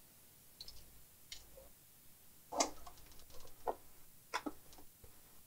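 Side cutters working on an electrical cable: a string of short, sharp clicks and snips, the loudest about two and a half seconds in.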